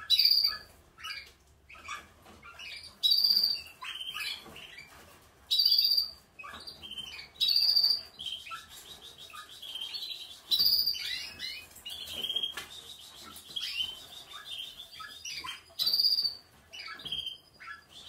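Several caged canaries singing: rapid high trills and warbling phrases, broken about six times by a loud, sharp call that is the loudest sound.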